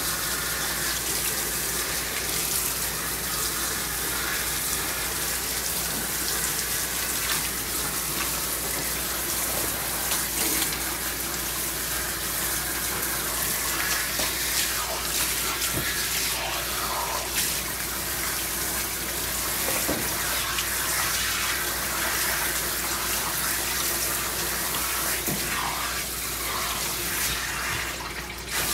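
Pistol-grip spray nozzle on a hose spraying water over a dog's wet coat in a bathing tub, rinsing it: a steady hiss of running water that cuts out briefly near the end.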